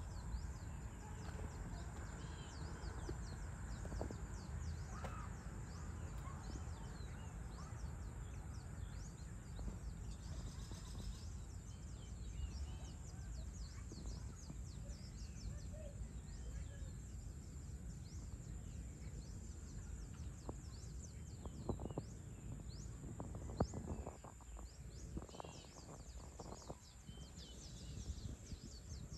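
Outdoor ambience of many small birds chirping and calling over a steady low background rumble, with a few short knocks about three-quarters of the way through.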